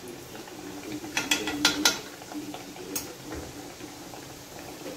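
Steel tongs clicking against an iron karahi while a kachori fries in oil: a quick cluster of clicks between about one and two seconds in, and one more click a second later.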